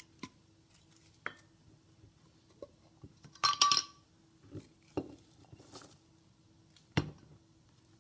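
Glass mason jar and its metal lid and screw band handled on a plastic cutting board: scattered clicks and knocks, a cluster of clinks with a brief ring about three and a half seconds in, and a sharp knock about seven seconds in.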